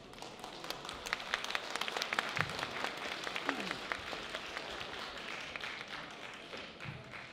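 Audience applauding with dense clapping that is fullest in the first few seconds and gradually thins out.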